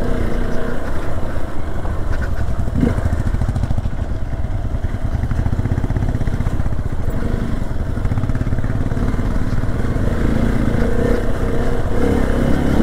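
Single-cylinder adventure motorcycle engine running while riding along, with a steady low rumble of fast, even firing pulses. Its note grows stronger near the end.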